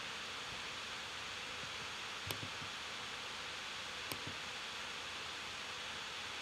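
Steady low hiss of room tone and microphone noise, with two faint clicks about two seconds apart.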